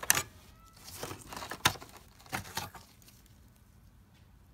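Hands working RAM modules out of an old 386 motherboard: a few sharp plastic clicks from the module latches, with rustling and crinkling from the dirty, nest-fouled case interior.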